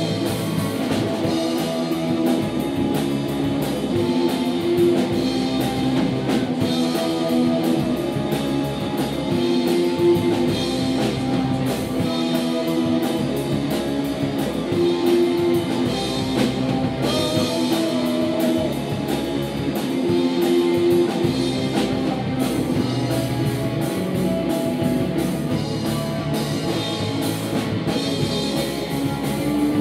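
A rock band playing live: electric guitars and a drum kit, without vocals, with a riff that comes round about every five seconds.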